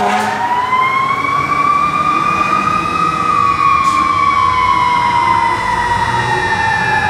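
Fire truck siren wailing: its pitch rises slowly over the first three seconds, then falls slowly for the rest of the time.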